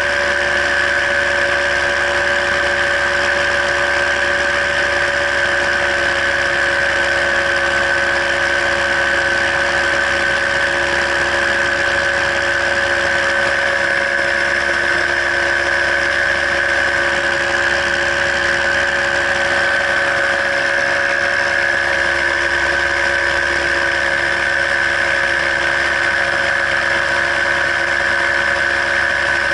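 Paramotor engine and propeller running steadily at cruise power in flight, a constant drone with a strong high whine and no change in pitch.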